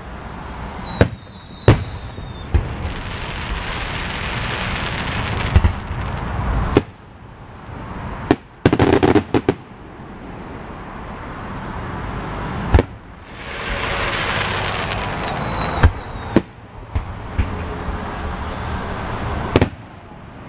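Aerial fireworks shells bursting: a dozen or so sharp reports heard from a distance as small pops, with a quick run of bangs about halfway through. A steady noise swells between bursts, and a short falling whistle is heard twice.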